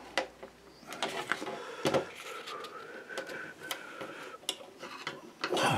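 Scattered light clicks and knocks of small objects being handled on a desk, with a faint wavering tone in the middle and a louder clatter near the end.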